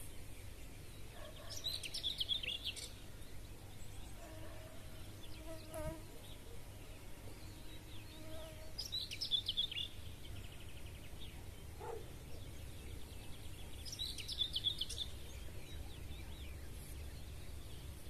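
A songbird singing three short trilled phrases about five to six seconds apart, with fainter, lower bird calls in between over a steady low outdoor background.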